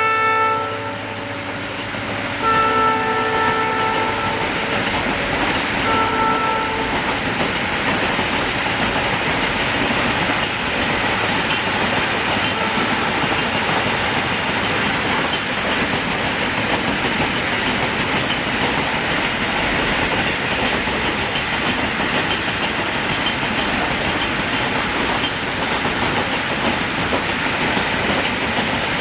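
Indian Railways locomotive's multi-tone horn, sounded three times: a blast ending about a second in, a longer one, and a short toot about six seconds in. After that the train runs past with a steady rumble and the clatter of its wheels on the rails.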